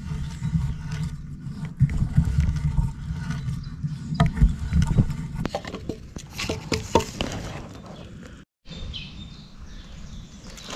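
Hand-turned auger bit boring into a log: the wood creaks and crunches as the bit cuts, with many sharp cracks. The sound breaks off suddenly about eight seconds in.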